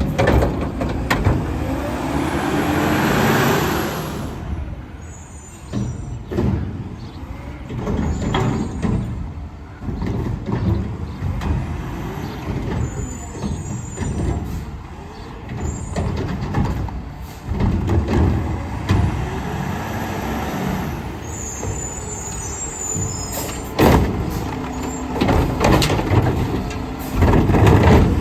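Mack LR garbage truck with a McNeilus Meridian front-loader body, its diesel engine running throughout, with a hiss of air brakes about two to four seconds in and a few sharp clunks, the loudest near the end.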